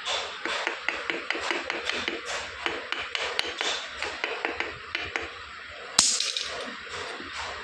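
Light metal-on-metal tapping and clicking as piston rings are pushed into a scooter cylinder with a screwdriver. A single sharp, ringing metallic click comes about six seconds in.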